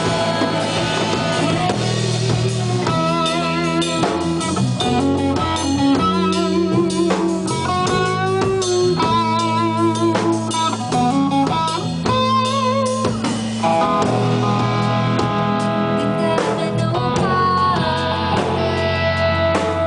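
A rock band playing live in an instrumental passage: an electric guitar plays sustained, wavering lead notes over more guitar and a drum kit, with no vocals.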